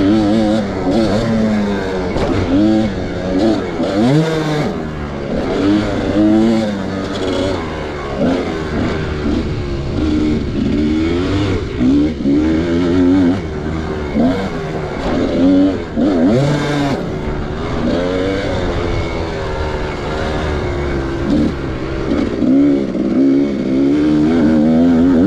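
Kawasaki dirt bike engine under way, heard from the rider's seat, revving up and dropping back again and again as the throttle is opened and closed along the trail.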